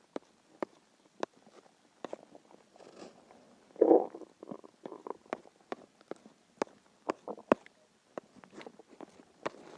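A human stomach growling when hungry: a string of small pops and clicks, with one louder gurgle about four seconds in.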